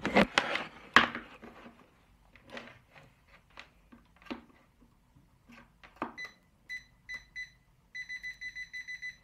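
GVDA GD128PLUS multimeter's buzzer beeping in phase-detection mode as its probe tip sits in a live mains socket, signalling a live conductor. It gives a few separate high beeps, then a fast even run of about eight beeps a second near the end. Before that come scattered clicks and knocks of the probe being handled and pushed into the socket.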